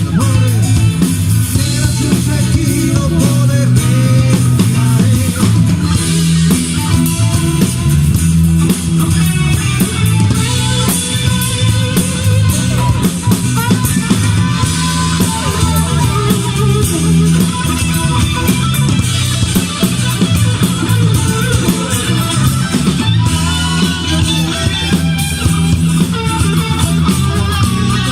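Rock band music with guitar, bass and drum kit playing steadily.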